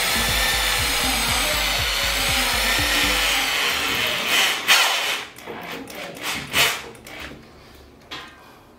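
Makita HR2630J rotary hammer, in rotation-only screwdriving mode, driving a screw through a metal shelf rail: the electric motor runs steadily with a whine for about three and a half seconds, then winds down. A few short bursts follow, near the middle and once more near the end.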